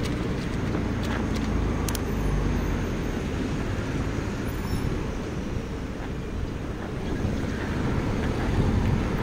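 Steady low rumble of wind and road noise while riding a city bicycle along a street with car traffic, with a couple of faint clicks about two seconds in.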